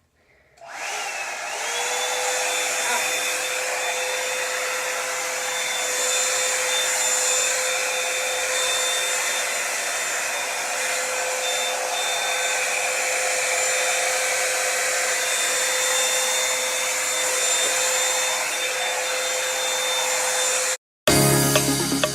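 Revlon One-Step hair dryer brush switched on and running steadily: a rushing stream of air with a steady motor whine that rises in pitch as it spins up in its first second. It cuts off suddenly near the end.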